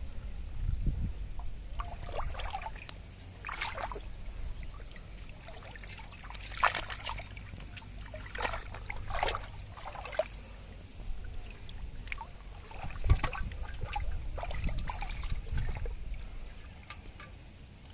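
Shallow water splashing and sloshing in short, irregular splashes as hands grab fish inside a bamboo polo trap and handle carp in a water-filled pot.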